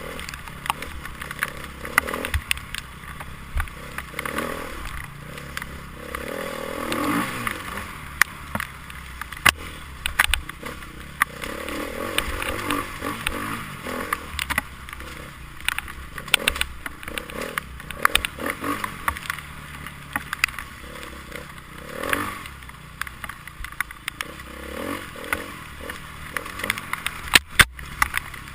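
Enduro motorcycle engine running, with many sharp clatters and knocks over it and a rev about seven seconds in; the sound cuts out briefly near the end.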